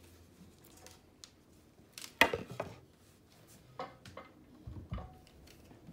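Objects being picked up and set down on a hard surface: one loud knock about two seconds in, then a few lighter knocks and taps.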